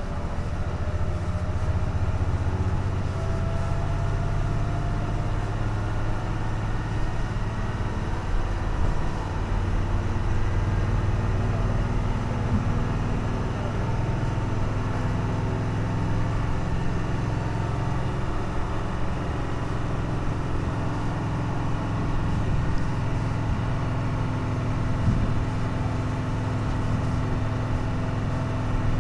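Hino Blue Ribbon city bus (KC-HU2MMCA) diesel engine running flat out near the red zone under heavy load on a steep climb, a loud, steady screaming drone heard inside the cabin, with its pitch creeping slowly up in the first few seconds.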